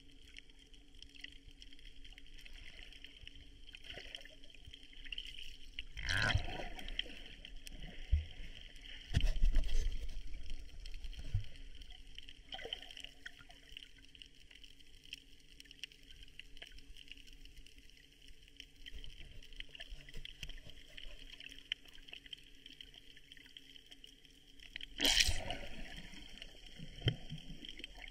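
Sea water sloshing and gurgling, with louder splashes about six seconds in, around nine to ten seconds and near the end.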